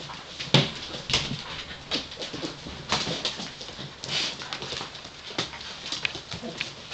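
Five-week-old Gordon Setter puppies shuffling on a fleece blanket over a tiled floor: irregular scuffles and small clicks, with a few short whimpers.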